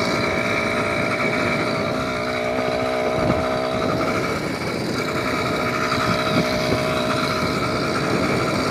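Motor vehicle engine running at a steady speed, with noise from the drive along a dirt road.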